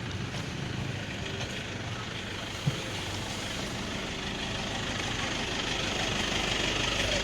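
A motor vehicle's engine idling with a steady low hum amid street traffic noise, growing louder toward the end. A single sharp knock about two and a half seconds in.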